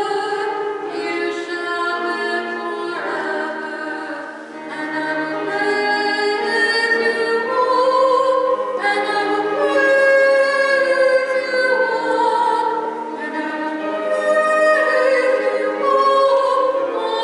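A communion hymn sung over a sustained accompaniment, the melody moving between long held notes.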